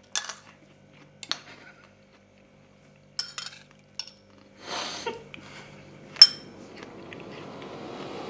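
Metal spoons clinking against ceramic bowls as food is tasted: a few scattered light clicks, with one sharp, ringing clink about three-quarters of the way through. A soft hiss swells in near the end.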